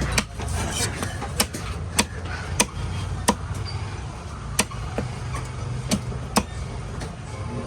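Knife chopping a trevally on a cutting block: about eight sharp chops at irregular spacing, over a steady low background rumble.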